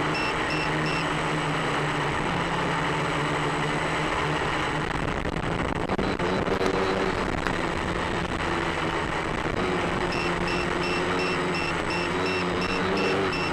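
Electric motor and propeller of a battery-powered FPV aircraft running steadily over rushing air, its pitch shifting as the aircraft descends to land. A low-battery alarm beeps about three times a second at the start and again from about ten seconds in.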